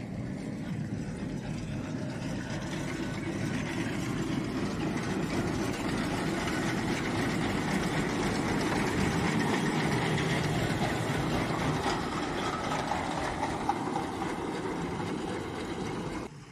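An engine-driven Krone round baler working steadily. It grows louder towards the middle as the baler passes close, eases off as it moves away, and cuts off just before the end.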